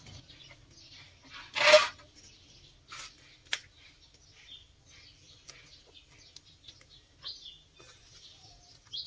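Snakes grilling over a charcoal fire: scattered crackles and a few sharp pops, with one loud, short rustling burst about two seconds in.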